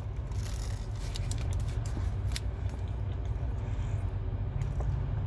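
Biting and chewing a paper-wrapped sandwich, with sharp crinkles and clicks from the wrapper in the first couple of seconds, over a steady low rumble inside a car.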